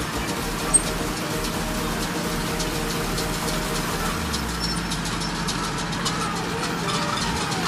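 New Holland tractor's diesel engine running steadily as it pulls a round baler through windrowed hay, with a short sharp click about a second in.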